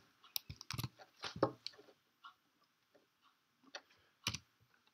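Scattered clicks of computer keys and mouse buttons, a quick run of them in the first second and a half, then single clicks every half second or so.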